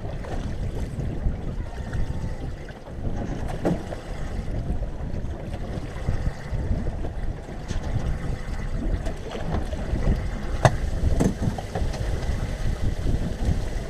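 Wind buffeting the microphone and choppy waves slapping against a small boat's hull, with a few sharp knocks and clatters from handling the gear aboard.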